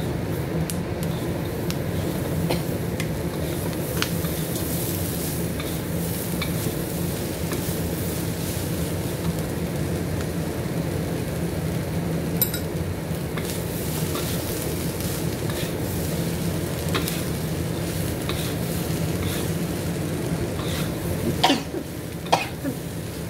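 Chickpeas with dried chillies, onion and curry leaves sizzling in oil in a wok while a wooden spatula stirs and scrapes them, with scattered clicks of the spatula on the pan. A sharp clink comes about halfway through, and there are two louder scrapes near the end.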